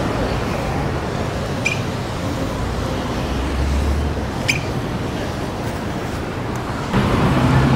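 City street traffic noise: a steady wash of passing vehicles, with a low rumble about halfway through and two short high chirps. Near the end a louder engine hum sets in, from a city bus.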